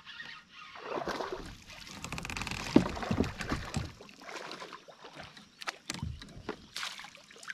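Splashing and knocking around a kayak as a hooked largemouth-type bass is fought in close beside the hull, an irregular run of sloshes, clicks and knocks with one sharp knock about three seconds in.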